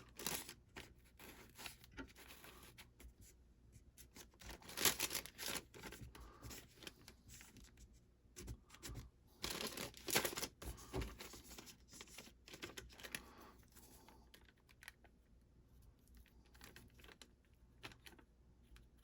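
Paper being handled and rustled, with scattered small taps and scratches and a few louder rustles about five and ten seconds in.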